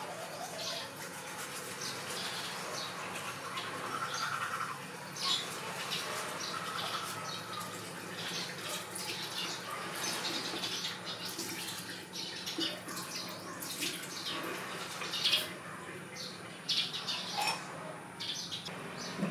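Teeth being brushed at a bathroom sink, then rinsed with water from about halfway through. Short, high bird chirps run throughout.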